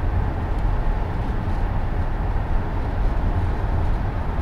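Steady low rumble of a moving vehicle: engine and road noise running evenly, without change.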